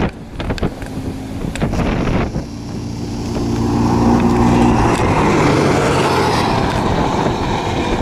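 Two racing ATVs, a four-stroke Honda TRX300EX and a two-stroke Polaris Scrambler 400, running hard at high revs as they come down the road, their engines growing louder and closest about halfway through. Wind buffets the microphone, most of all in the first couple of seconds.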